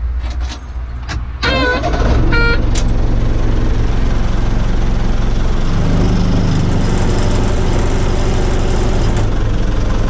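Caterpillar 426 backhoe loader's diesel engine, heard from inside the cab, throttled up about a second and a half in and then running hard and steady. The engine note shifts around the middle as the loader takes the weight of a heavy concrete block.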